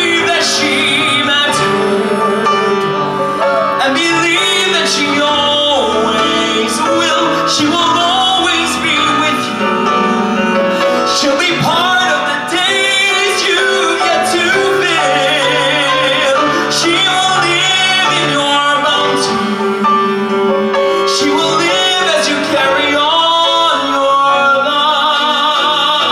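A man singing a musical-theatre ballad at full voice over musical accompaniment, with long held notes and wide vibrato.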